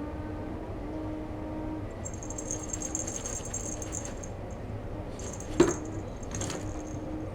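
Jingling of a small bell on a cat teaser toy being shaken, in two spells, with one sharp short sound about five and a half seconds in.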